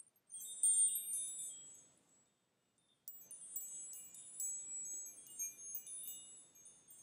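High, tinkling chimes, many light strikes ringing on. A first cluster fades out about two seconds in, and a second, longer run of strikes starts at about three seconds.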